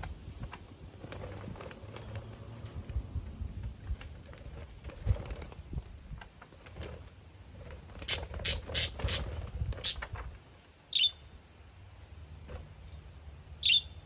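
Budgerigars chirping: a quick run of sharp chirps partway through, then two short single calls near the end, over a low steady rumble.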